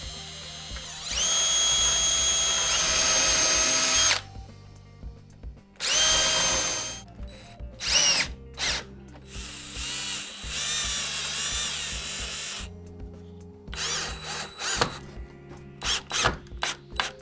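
Power drill boring angled pilot holes into a 1x3 wooden framework piece. It runs in a long steady whine of about three seconds, then shorter runs, then a string of quick trigger pulses near the end, over quiet background music.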